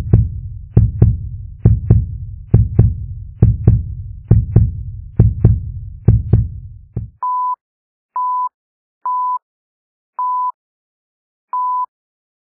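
Intro sound effects: a heartbeat-like pattern of paired low thumps repeating a little faster than once a second, then, about seven seconds in, five short single-pitch beeps of a film-leader countdown about a second apart.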